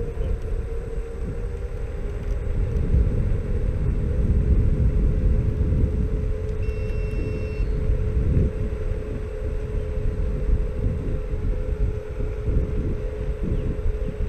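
Xiaomi Mi Scooter Pro 2 electric scooter riding at steady speed: the hub motor's steady whine over a low rumble of tyres on asphalt and wind on the microphone.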